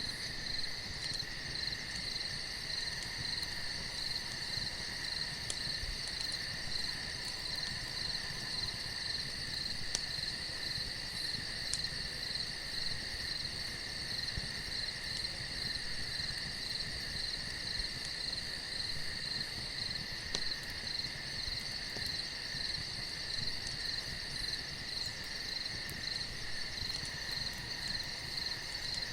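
Steady night chorus of crickets trilling, with a few faint clicks now and then.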